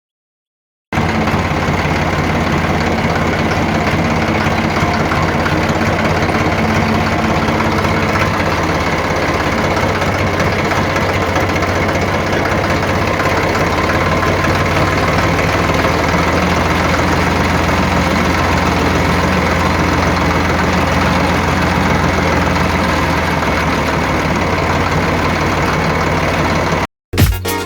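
An engine idling steadily with a fast, even knock. It starts abruptly about a second in and cuts off suddenly near the end.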